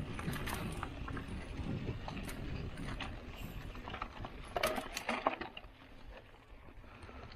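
Mountain bike rolling downhill on a dry dirt trail: a steady rumble of tyres on dirt with scattered clicking and rattling from the bike, and a burst of clunks about four and a half seconds in as it rolls over a rock step, after which it goes quieter.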